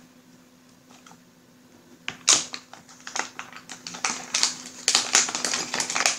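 Small hard plastic pieces clicking and rattling as they are handled by hand: a quiet start, then from about two seconds in a dense run of quick clicks.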